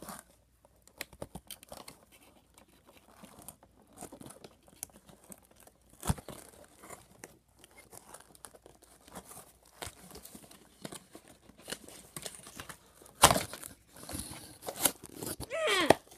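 Cardboard toy box and its packaging being handled and pulled apart: scattered tearing, crinkling and clicking, with louder sudden rips about six and thirteen seconds in. A brief squeak that bends in pitch comes near the end.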